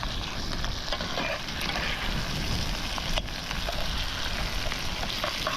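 Crab curry sauce sizzling and bubbling in a camp oven over a campfire: a steady hiss with small crackles, over a low rumble of wind on the microphone.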